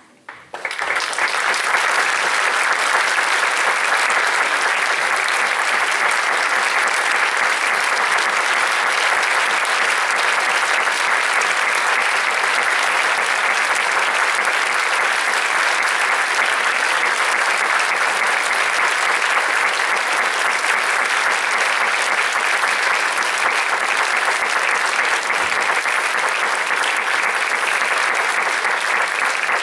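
Audience applauding: clapping breaks out of near silence and swells within about a second to a steady, even level.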